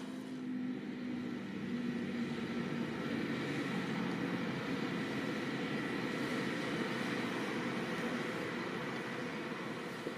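Fendt 724 Vario tractor's six-cylinder diesel engine running steadily under load while pulling a five-furrow Lemken plough.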